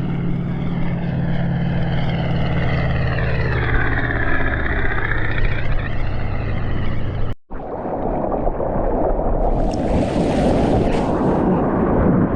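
Surf and rushing water heard through a GoPro in the water, with a steady low hum under wavering, sweeping noise. About seven seconds in the sound cuts out for an instant, then gives way to loud churning, rushing water with a few sharp splashes.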